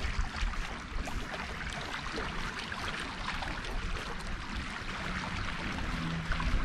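Lake water lapping and splashing in a steady wash of small splashes.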